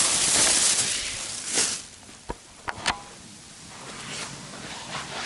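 Loud rustling over the first two seconds or so, then a few sharp knocks and clicks over softer rustling: gear being handled and moved about.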